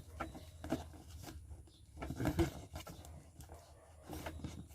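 Packaging being handled: rustling with scattered light knocks and clicks as items are lifted out of a box, busiest about two seconds in.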